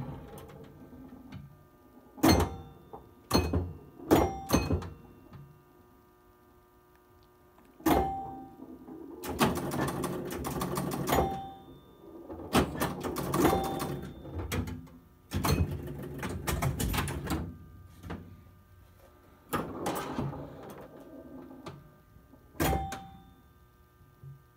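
Williams Dealer's Choice electromechanical pinball machine in play: sharp solenoid knocks from the flippers and bumpers, and spells of clattering from relays and score reels. Short ringing chime tones sound as points score.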